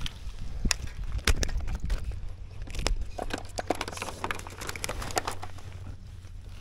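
Irregular clicks and knocks of a just-hooked fish being landed and handled at a kayak, thickest in the middle, over a low steady rumble.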